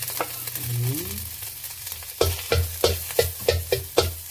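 Grated garlic, galangal and turmeric sizzling in a little hot oil in a wok. About halfway through, a steady run of knocks, roughly three a second, joins the sizzle.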